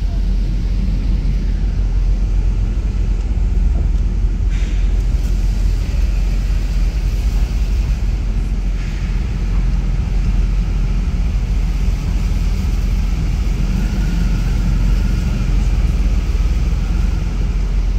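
Steady low rumble of a moving vehicle, with two faint brief hisses about four and a half and nine seconds in.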